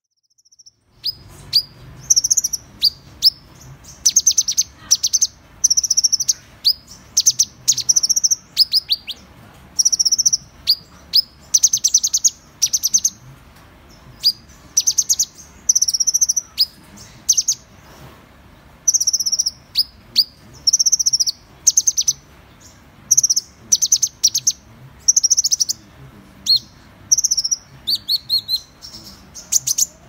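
Van Hasselt's sunbird (purple-throated sunbird) singing and calling: high, thin, sharp chirps delivered in quick clusters of several notes, repeating every second or so, starting about a second in.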